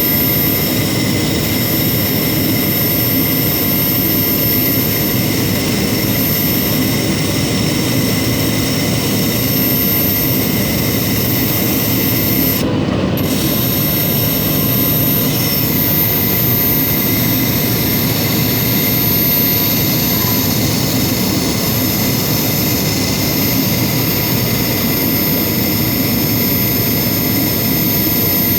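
Steady machine whir with thin high whines, as from a CNC laser engraver running with its fans going.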